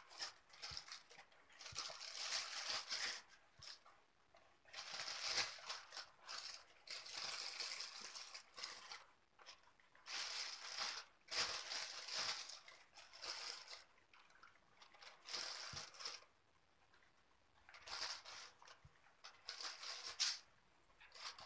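Repeated bursts of rustling and crinkling, each a second or two long, with a few light taps, as laddus are taken from their packaging and set out on a foil plate.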